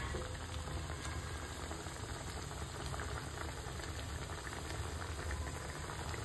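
Spicy mutton curry (rassa) boiling in a steel pot, bubbling steadily with fine crackles, over a steady low hum.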